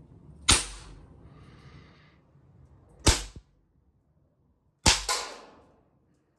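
Swiss Arms CO2 air pistol firing 4.5 mm steel BBs: sharp pops about half a second in, about three seconds in, and a close pair near the end.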